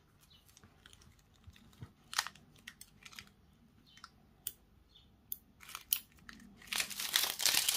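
Cut adhesive vinyl being weeded with a hooked weeding tool: scattered small ticks and crackles as scraps are picked and peeled off their backing sheet, with a longer stretch of crinkling near the end.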